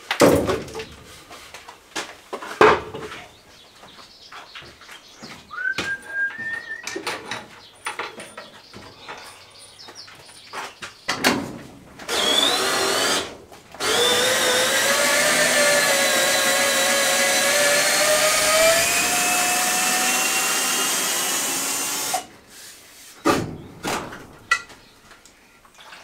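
Knocks and clatter of wooden shelf boards being handled, then a cordless drill running: a short burst about halfway through, then a long run of about eight seconds with its whine slowly rising in pitch as it backs screws out of the overhead framing. It stops abruptly and a few more knocks follow.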